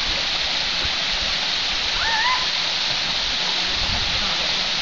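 Waterfall: a steady hiss of falling water. A brief high rising note, likely a voice, cuts through about two seconds in.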